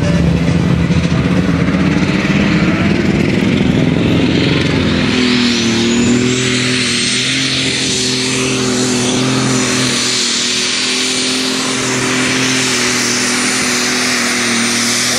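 Pulling tractor's engine at full throttle as it drags a weight-transfer sled down the track. Its note climbs over the first five seconds, then holds high and steady with a strong hiss above it.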